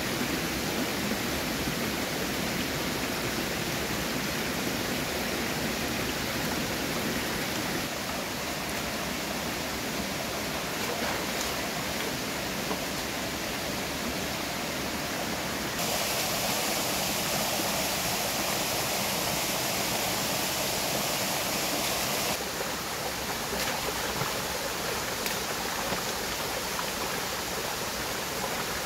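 Flowing stream water: a steady rush of water with no other events, its level and brightness jumping abruptly a few times.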